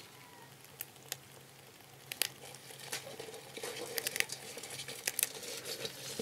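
Irregular clicks and scratches of live river crabs' legs and shells against a wet steel bowl, growing busier about halfway through.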